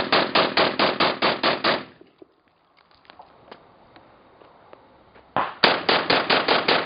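SKS rifle fired in quick succession, about five shots a second. The first string ends about two seconds in; after a pause with faint scattered distant shots, a second string starts near the end.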